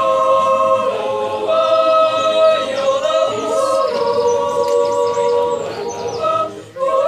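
A group of young voices singing a cappella in several-part harmony, holding long chords that step to new notes every second or two. There is a brief break for breath near the end before the singing resumes.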